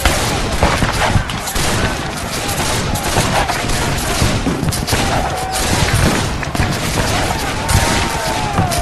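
Recorded Civil War battle sound effects played over the cyclorama's speakers: continuous, overlapping musket volleys and gunfire crackling without a break, with men yelling over the shooting.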